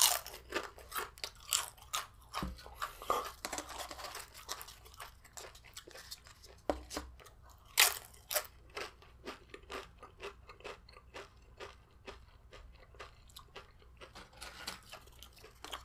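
Tortilla chips being crunched and chewed close to the microphone: a rapid, irregular run of crisp crunches, the loudest about eight seconds in.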